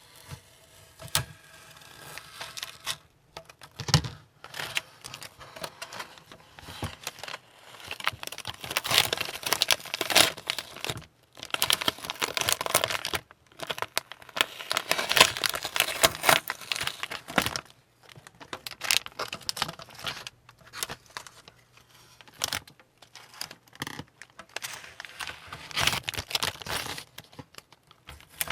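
Masking tape being peeled off the painted plastic hull of a scale ship model, crackling and tearing in several long bursts with short pauses and scattered clicks between them.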